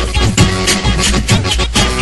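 Funk carioca beat without vocals: heavy bass under a steady pattern of drum hits.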